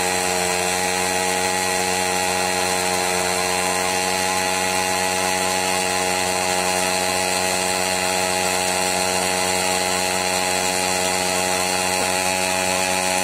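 WSK 125's single-cylinder two-stroke engine held at high revs, a steady buzz at one pitch, while the rear tyre spins on gravel in a burnout.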